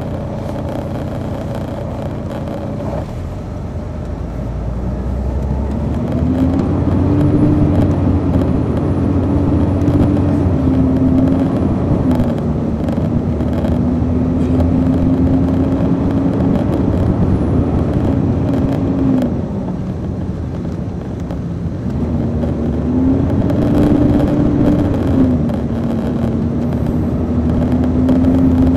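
On board an MCI D4000 coach, its Detroit Diesel Series 60 engine idles for the first few seconds, then pulls away and gets louder. The engine pitch climbs and holds, steps down around a third of the way in, dips again past the middle and climbs once more near the end, as the Allison automatic transmission works through its gears.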